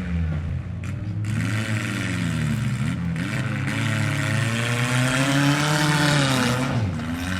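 Engines of demolition-derby mini trucks revving, their pitch rising and falling repeatedly as the drivers work the throttle, over a steady rushing noise.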